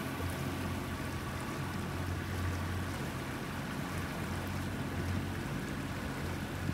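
Small tiller-steered outboard motor running at a steady pace as the fishing boat moves off, a constant low drone with water rushing along the hull.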